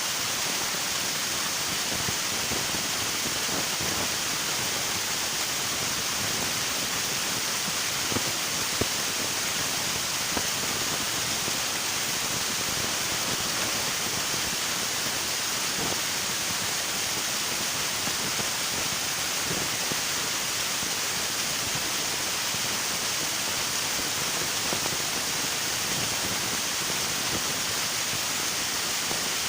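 River water flowing: a steady rush of water with a few small splashes, two of them about eight seconds in.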